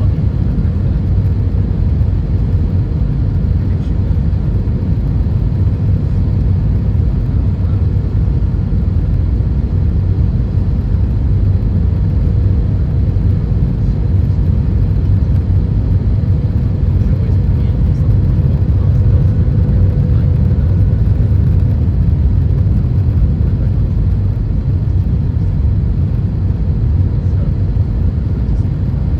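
Steady low rumble of an Airbus A320-232's IAE V2500 engines and airflow, heard from inside the passenger cabin, with a faint steady hum above it.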